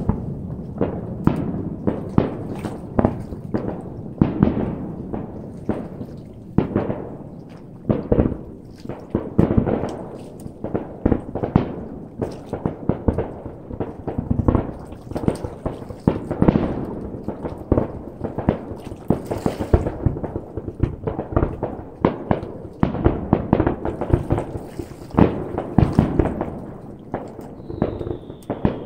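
Aerial fireworks shells bursting one after another, a constant run of booms and crackles. A short falling whistle sounds near the end.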